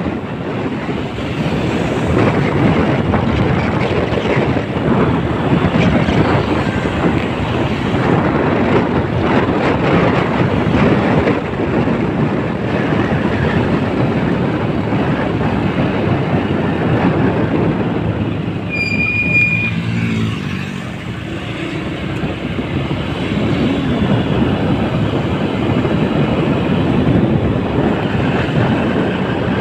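Steady rushing of wind and road noise from a moving motorcycle, with a short high beep about two-thirds of the way through.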